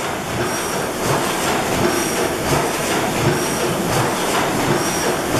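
Small hopper-cooled antique stationary gasoline engine running: a steady mechanical clatter and hiss, with a short high squeak about every one and a half seconds.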